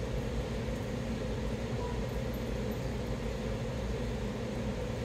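Steady low hum and even hiss of room background noise, with no distinct events.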